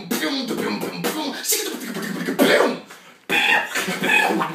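Beatboxing: rapid vocal percussion of mouth clicks and hissing snare-like sounds over hummed, pitched tones. It breaks off briefly about three seconds in, then resumes.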